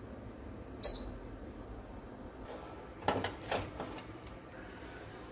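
A short beep from the Gourmia air fryer oven's control panel as a button is pressed. About two seconds later comes a clatter of several quick metal knocks as the oven door is opened and the metal pan on the wire rack is handled.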